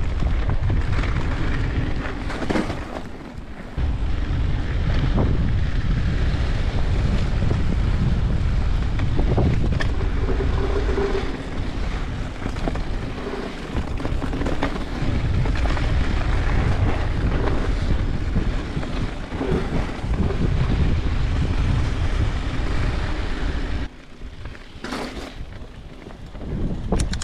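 Heavy wind rush buffeting the microphone of a mountain bike rider on the move, a dense low rumble that drops away sharply about 24 seconds in.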